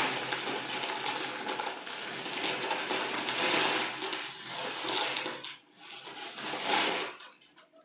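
Small rocks poured from a plastic bag into a clear plastic box, clattering against the plastic and each other, with the bag crinkling. The clatter breaks off briefly a little past halfway and dies away near the end.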